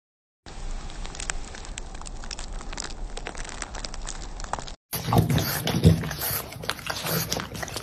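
A steady hiss with scattered small crackles, then, after a brief break, a black French bulldog puppy licking cream off a spoon: loud wet licking and smacking in repeated bursts.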